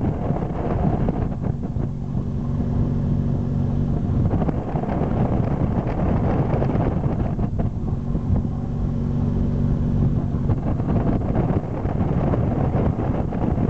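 Tow boat's engine running steadily at skiing speed, with wind buffeting the microphone and the rush of water from the wake.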